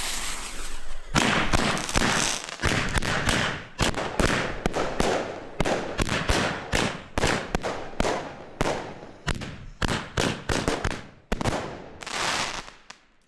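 Fireart Dramatic 30-shot fan cake firing: about a second of fuse hiss, then a rapid string of shots, two or three a second, each with a short fading tail. The shots thin out and die away near the end.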